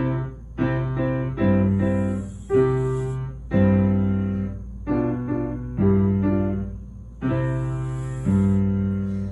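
Slow piano chords, about nine struck one after another, each left to ring and fade. Twice, a few seconds apart, a soft hissing snore from someone asleep comes through under the piano.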